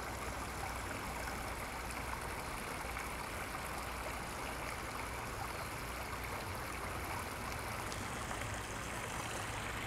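Small creek trickling over rocks in a low cascade: a steady water trickle.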